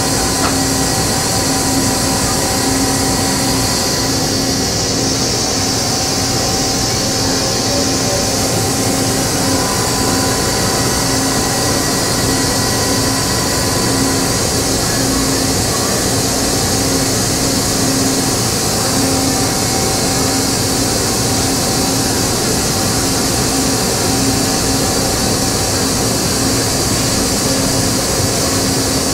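Steady hum and hiss of machinery running in a plant, with a low tone that pulses on and off about once a second.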